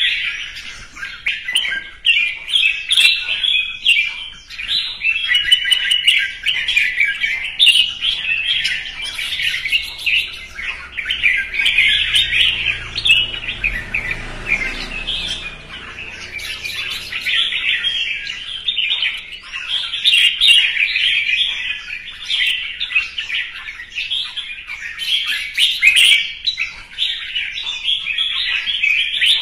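Red-whiskered bulbul singing its competition song: a continuous run of fast, chattering, warbled phrases with only brief pauses.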